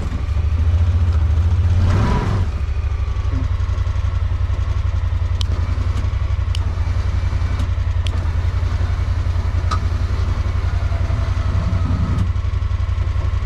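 Honda Pioneer 1000 side-by-side's parallel-twin engine idling steadily, heard from inside the cab, with a brief louder surge about two seconds in. A few light clicks come through over the running engine.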